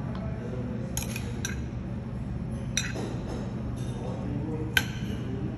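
Cutlery clinking against dishes: four sharp clinks, the loudest near the end, over a steady low hum.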